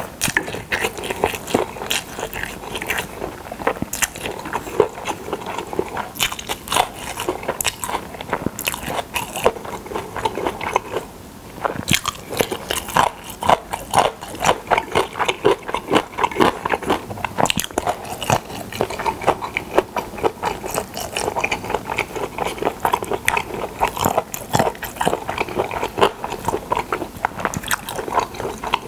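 Close-miked chewing of pressed boiled pork (pyeonyuk) and seasoned dried radish strips (mumallaengi), steady and continuous with a short pause about eleven seconds in.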